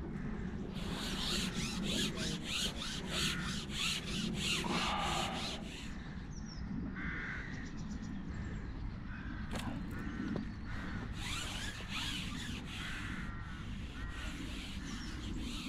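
Corvids cawing repeatedly, with a string of arched calls through the second half. Over the first few seconds there is also a fast rasping rattle of about five strokes a second.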